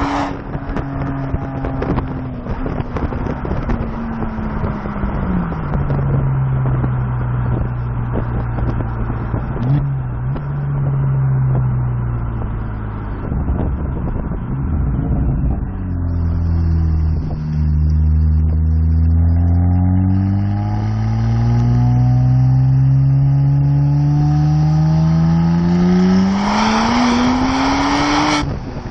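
Exhaust of a turbocharged BMW fitted with 3-inch downpipes, on the move. Engine speed falls away over the first few seconds with irregular crackling, holds low, then rises steadily through a long pull in one gear from about seventeen seconds in. Near the end the revs break off briefly, as at a gear change.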